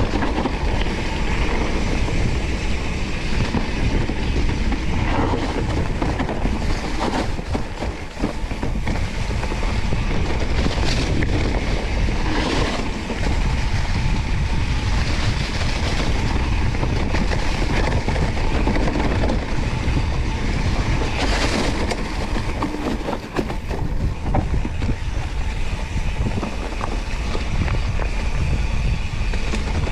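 Mountain bike rolling over a rough dirt trail: continuous rattling of the bike and tyre noise, with steady wind rush on the microphone.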